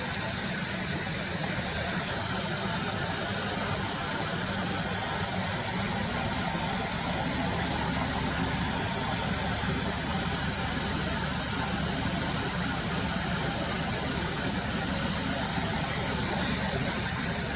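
A car engine idling steadily, a low even hum, with brief high-pitched chirps recurring every few seconds above it.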